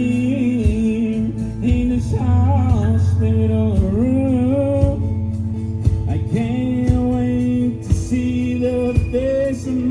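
Live country-rock band playing, with a bending melodic lead line over a steady bass and drum beat.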